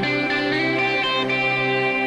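Instrumental background music led by guitar, with held notes that change every so often.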